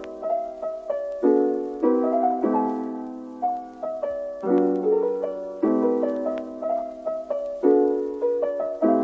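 Background music: soft piano or keyboard playing a gentle melody over repeated chords, each note struck and fading away.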